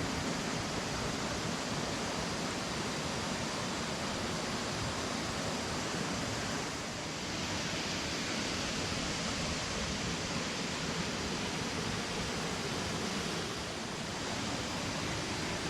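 Waterfall rushing steadily, a constant even roar of falling water.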